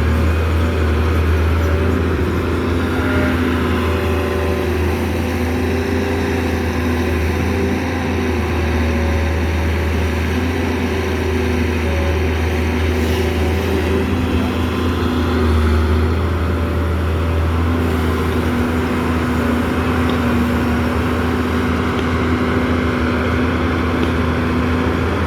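Doosan excavator's diesel engine running steadily under load, a deep hum with a hydraulic whine that comes and goes as the machine works.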